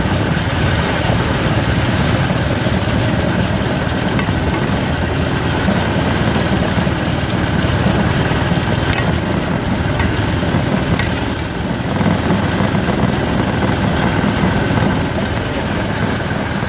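Engine of a motorized narrow-gauge rail trolley (draisine) running steadily.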